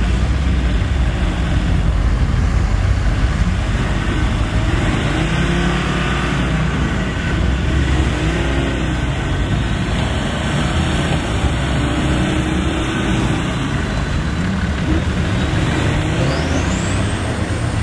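Off-road 4x4 pickup engine running under load through deep mud, its revs rising and falling several times.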